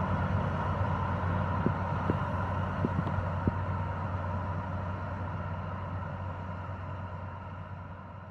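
Tractor-drawn airblast orchard sprayer running, its engine and twin turbine fans making a steady hum, with a few light clicks, gradually fading out.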